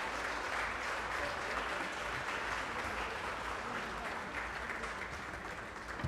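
Audience applauding steadily, gradually fading.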